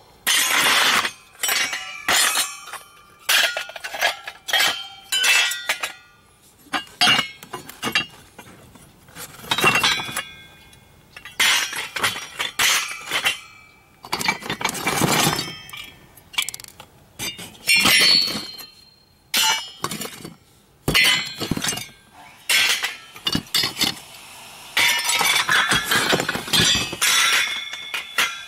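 Finned metal heat sinks clanking and clinking as they are handled, knocked together and set down while scrap is sorted by hand. The strikes come irregularly in clusters with short pauses between, many with a brief metallic ring.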